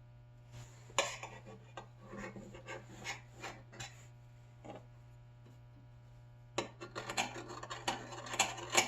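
Hand work on small metal parts: irregular scraping and rubbing with sharp clicks, in two spells, the first starting about a second in and the second near the end. A steady low hum runs underneath.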